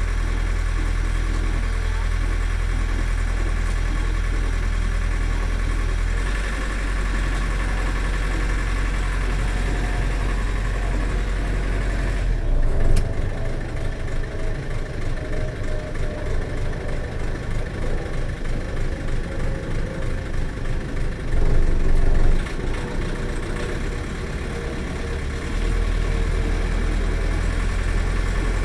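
Sailing yacht's inboard engine running steadily at low speed as the boat motors out of a marina. Its low drone shifts a few times, dropping at about six and twelve seconds in and coming back near the end.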